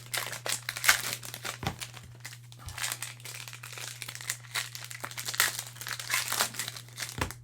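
Cellophane trading-card pack wrappers crinkling and tearing as packs are opened by hand, a dense run of sharp crackles that stops suddenly near the end.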